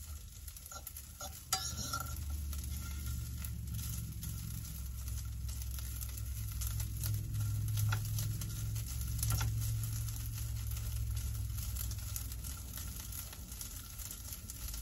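Leftover curry heating in a pan with a little olive oil, sizzling softly while a utensil stirs it, with scattered clicks and scrapes against the pan. A steady low hum runs underneath.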